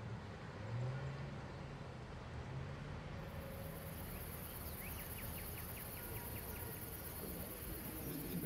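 Outdoor street ambience: a low steady traffic hum, joined about three seconds in by a steady high-pitched hiss that carries on, with a quick even run of faint clicks near the middle.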